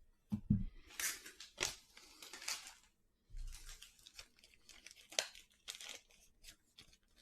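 A trading-card pack wrapper being torn open and crinkled, in rustling bursts, followed by lighter rustles and clicks of cards and wrapper being handled.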